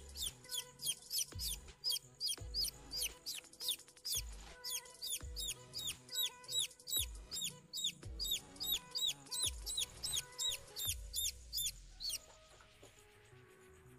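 Newly hatched kampung chicken chick peeping loudly and over and over, high downward-sliding peeps about three a second, stopping about twelve seconds in. Dull low thumps sound under the peeps.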